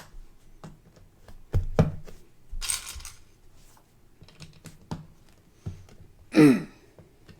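Lego bricks clicking and knocking as pieces are handled and pressed together, with a brief rattle of loose pieces near the middle. About six seconds in comes a short vocal sound falling in pitch.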